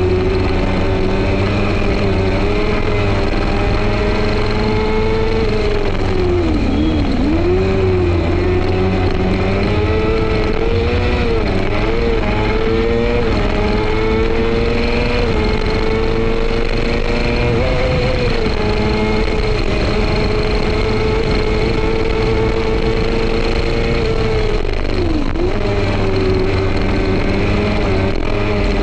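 F2 racing sidecar's engine running hard at high revs, heard onboard over a low rumble; the revs drop sharply and climb back three times.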